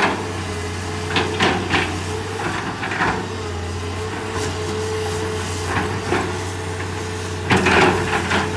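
Hitachi EX200 hydraulic excavator's diesel engine running under load, a steady low drone with a steady higher whine above it, and several short clanks and knocks from the machine working, the loudest near the end.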